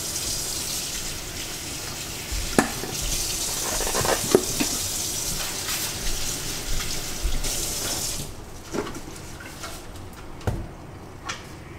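Steady hiss from the gas burner and the boiling pot of broth, cutting off suddenly about eight seconds in. Scattered clinks and knocks of a seasoning shaker and utensils against the aluminium stockpot.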